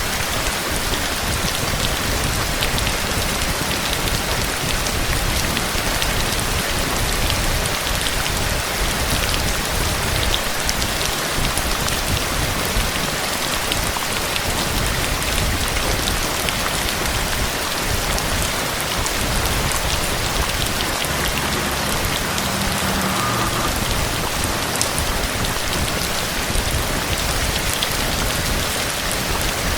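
Steady heavy rain falling on a surface: an even hiss with scattered sharper drop ticks.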